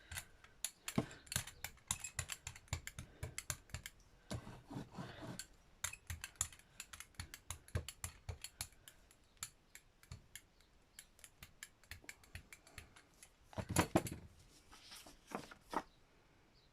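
Rapid, irregular small clicks and taps from hands handling craft tools, paint and paper on a tabletop. Twice there is a brief rubbing or scraping noise, once a few seconds in and once near the end.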